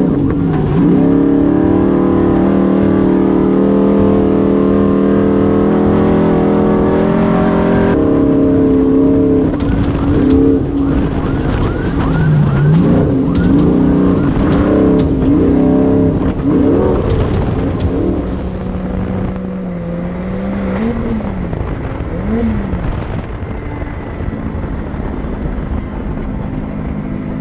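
Off-road race vehicle's engine heard from inside the cockpit. It is held at steady high revs for the first several seconds, then revs up and down again and again as the throttle is worked over the dirt road. In the last third it runs lower and quieter, with a few short rises in pitch.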